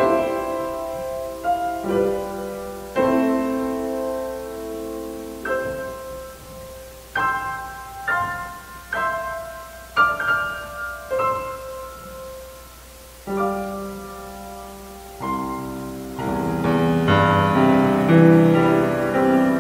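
Grand piano played solo: a slow succession of struck chords and single notes, each ringing and dying away. The playing grows fuller and louder near the end.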